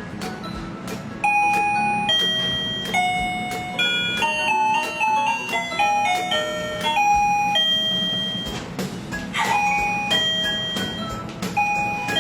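Wireless doorbell receiver playing an electronic chime melody: a run of clear ringing notes stepping up and down in pitch, starting louder about a second in.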